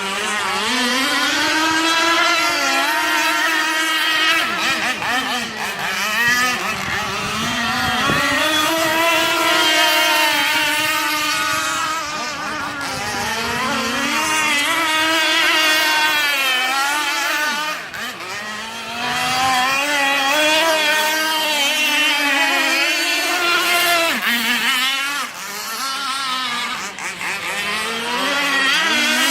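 Small petrol engine of a radio-controlled catamaran boat running hard, its pitch rising and falling again and again as the throttle is opened and eased, with a few short drops in revs.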